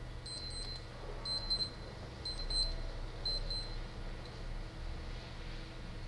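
Electronic beeping, like a digital alarm or timer: short high beeps in pairs, about once a second, stopping a little past three and a half seconds in, over a steady low hum.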